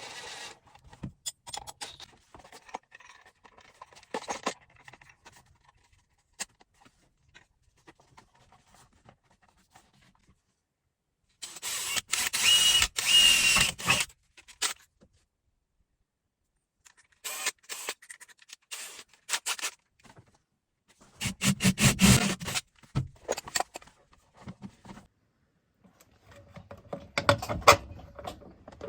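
Intermittent clicks, knocks and scraping from hand work on fittings, broken by a loud harsh burst of about three seconds near the middle and another shorter loud burst later.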